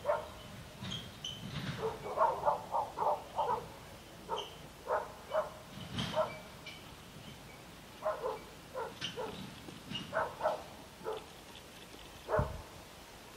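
An animal gives short barking calls in quick runs of several, each run a second or two long, with short pauses between the runs. One louder call near the end.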